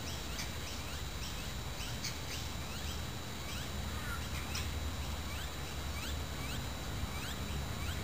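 Quiet outdoor ambience: a steady run of faint, short high chirps, about three a second, over an even hiss, a thin steady high tone and a low hum.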